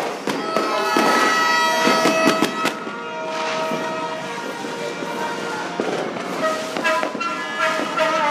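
Firecrackers and fireworks going off outside in scattered sharp bangs and pops, with several long held tones sounding under them.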